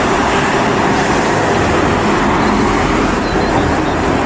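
Minibus driving along a street: steady engine and road noise, with traffic in the background.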